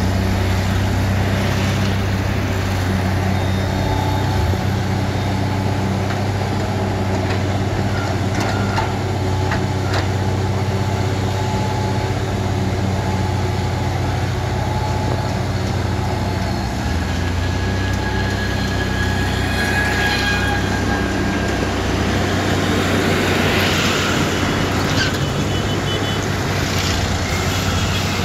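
JCB JS140 tracked excavator's diesel engine running steadily as it digs soil, with higher whining tones coming and going over the low hum. The sound turns rougher and noisier for a few seconds near the end.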